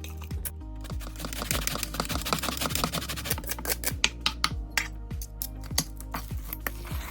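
Background music with a steady low bass line, overlaid by many sharp clicks and knocks and a brief rustling stretch a couple of seconds in.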